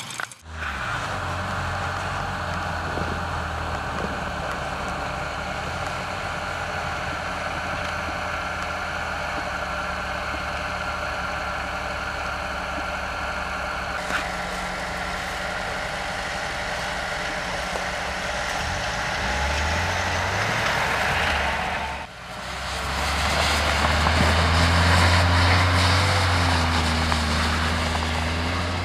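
A motor vehicle's engine running steadily. It breaks off sharply about 22 seconds in and comes back louder, with its pitch slowly shifting.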